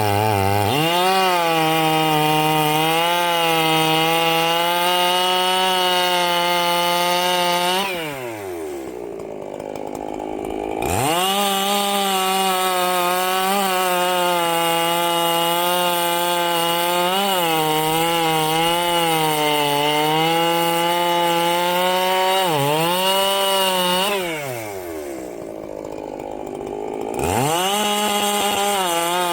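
Ported Echo CS-7310 two-stroke chainsaw with a 24-inch bar, running at full throttle while cutting logs. Twice it drops back to idle for a few seconds between cuts, then revs quickly back up into the wood.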